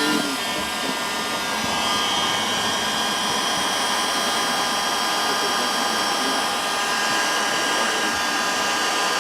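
Electric heat gun running steadily, blowing hot air to shrink heat-shrink tubing over crimped wire splices, with a steady fan whine.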